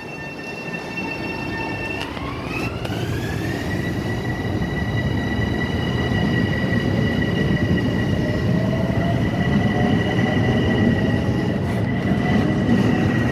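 LIRR M7 electric multiple unit pulling out and picking up speed. Its traction motor whine holds steady tones, glides up in pitch about two seconds in, then holds again. A second, lower whine climbs slowly later on, over a growing rumble of wheels on rail.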